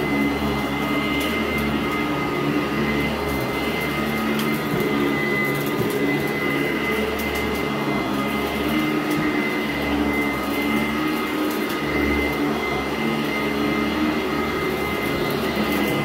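A Sanitaire SC886 commercial upright vacuum running steadily, with a constant high motor whine, as it is pushed back and forth over carpet.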